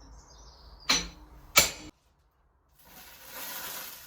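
Two hammer blows on hot steel over an anvil, a little under a second apart, each with a short metallic ring. After a sudden cut, a steady hiss begins about three seconds in.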